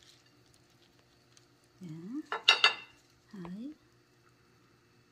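Dishes and utensils clinking: a quick cluster of sharp clinks with a brief ringing, about halfway through, as bowls and a basting brush are handled on the counter.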